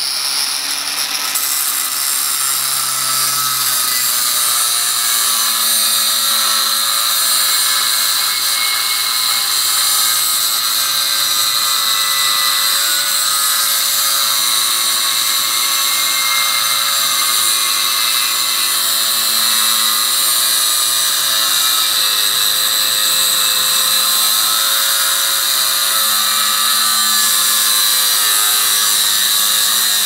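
Angle grinder with an abrasive cutting disc running steadily at full speed with a high whine, cutting into the steel shell of a refrigerator compressor.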